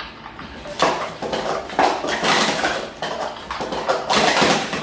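Gold plastic sport-stacking cups clattering quickly on a stacking mat as they are stacked up and down at speed in a timed run, a dense stream of light clicks and clacks.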